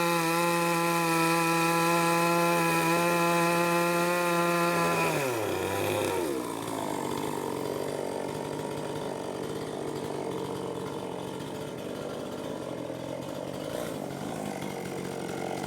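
Two-stroke chainsaw running at a steady high speed, then the throttle is let off about five seconds in and the engine note falls away to a lower, rougher idle.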